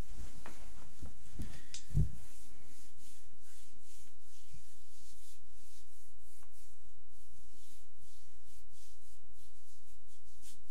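A hand rubbing back and forth over the bare skin of a shoulder, a soft, even swishing repeated a few times a second. A few low thumps come in the first two seconds, the strongest about two seconds in.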